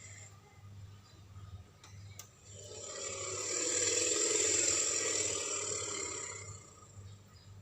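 Elephant call sound effect: a breathy, rasping exhalation without a clear pitch. It swells from about two and a half seconds in, peaks, and fades away near the end, over a faint steady low hum.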